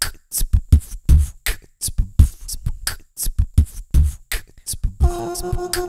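Beatboxing into a headset microphone, being looped: deep kick thumps and hissing hi-hat sounds in a loose beat. Near the end a held chord of steady tones comes in under the beat.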